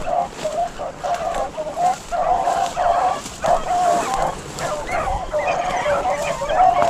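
A pack of rabbit hounds baying as they run a rabbit: rapid, overlapping yelps and bawls from several dogs with hardly a break, the sound of the pack on a hot trail of the cottontail.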